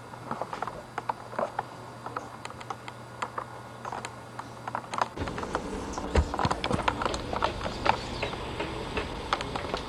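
Footsteps and camcorder handling noise: irregular light clicks and knocks, several a second, with a low rumble joining in about five seconds in.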